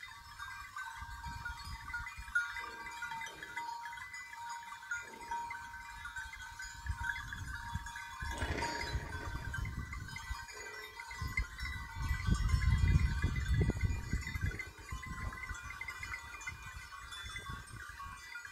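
A large herd of goats with many bells ringing and clinking together, a few goats bleating now and then. A low rumbling noise rises about two-thirds of the way through and is the loudest part.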